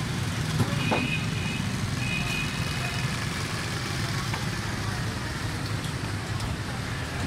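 A knife striking a wooden chopping block as raw chicken is cut, a few sharp taps, over a steady low background rumble.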